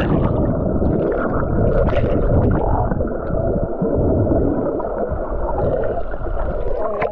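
Muffled rushing and bubbling of seawater around an action camera held underwater, with almost no high sounds; it starts abruptly as the camera goes under and cuts off abruptly near the end as it comes back out.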